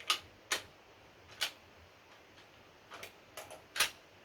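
Sharp metallic clicks and clacks from a 12-gauge shotgun's action being worked by hand, about six of them at uneven intervals with a quick cluster of three near the end. This is typical of a shotgun that fails to cycle low-brass shells and is being cleared.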